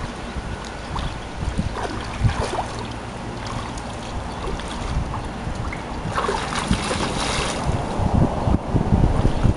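Wind buffeting the microphone over a steady rush of water, with a louder rush of noise about six seconds in.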